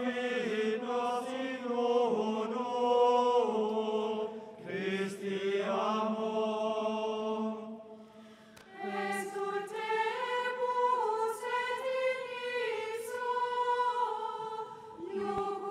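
A choir singing a hymn in sustained, held phrases, with a brief break about halfway through before the singing picks up again.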